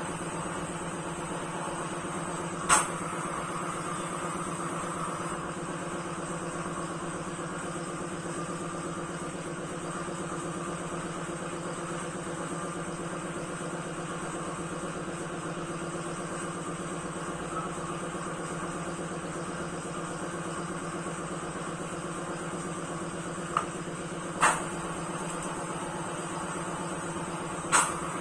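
Pneumatic glove turning machine at work: a steady machine hum, with short sharp bursts of air from its valves about three seconds in and three more near the end.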